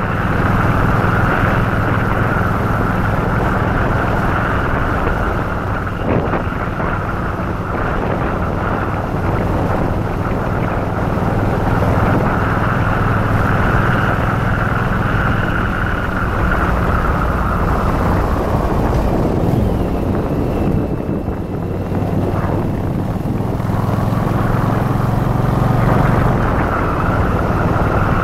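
Yamaha Virago XV1100's air-cooled V-twin engine running steadily under way, with wind rushing over the microphone. The sound eases off for a few seconds about two-thirds of the way through, then builds again.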